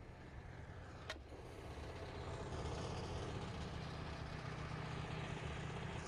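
A steady low rumble, like a distant running engine, with a single sharp click about a second in.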